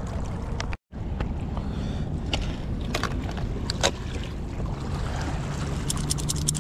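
Steady low wind rumble on the microphone at the waterside, broken by a few sharp clicks and taps, with a quick run of ticks near the end.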